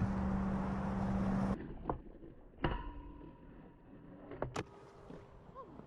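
Skateboard trucks (Grind King Lockers) knocking onto a round metal rail and grinding a 50-50, with a brief metallic ring after one knock, then a sharp clack. Before that, a steady low noise with a hum cuts off abruptly about a second and a half in.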